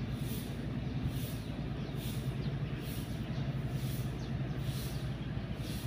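A steady low engine hum, like a vehicle idling close by, with faint high pulses repeating about every half second.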